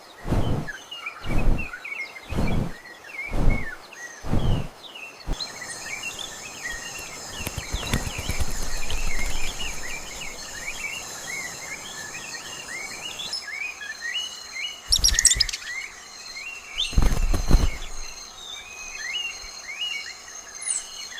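Many small birds chirping and calling at once, over a steady high insect-like drone. It is preceded by a run of rhythmic thumping pulses about every 0.8 s for the first five seconds, and broken by two brief loud noisy bursts near the end.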